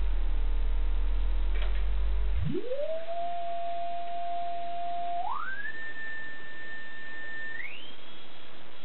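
Sine-wave test tone from a signal generator, played through a TV speaker and swept upward past 8 kHz, heard as a low hum that about two and a half seconds in glides up into a steady whistle and then steps higher twice more. The pitch heard does not match the generator's frequency: it is shifted by the recording's encoding and A-to-D conversion.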